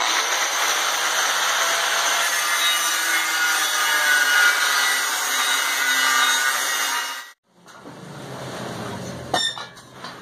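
Angle grinder with a cut-off disc cutting through eighth-inch steel plate, a loud steady grinding that stops abruptly after about seven seconds. A quieter stretch follows, with a few metal clinks near the end.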